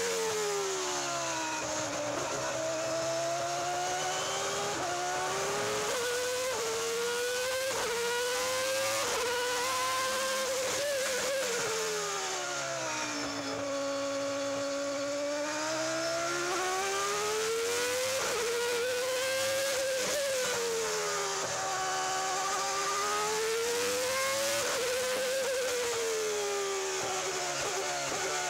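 A Williams Formula One car's V10 engine at full racing revs, recorded onboard. The note climbs in quick steps as it changes up through the gears, then drops with downshifts under braking into corners. It is at its lowest about halfway through, in a slow corner, and accelerates again several times.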